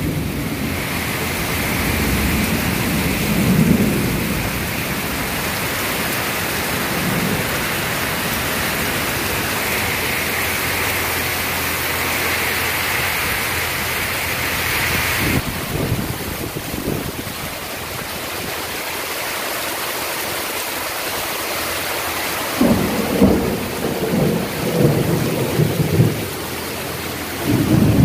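Heavy rain pouring down on concrete, lawn and a porch roof, a steady dense hiss. Low, choppy rumbles surge in and out a few times, most often in the last few seconds.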